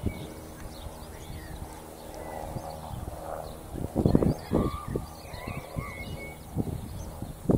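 Outdoor ambience of small birds chirping and calling intermittently. Wind buffets the microphone in uneven low gusts, loudest about four seconds in.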